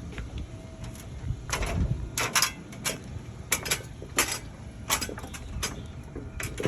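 Irregular scrapes and sharp clicks, about one or two a second, from work on an asphalt shingle roof, over a low steady rumble of wind.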